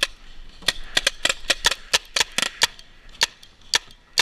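Paintball markers firing: about a dozen sharp pops in quick, uneven volleys, thickest in the first three seconds and then sparser.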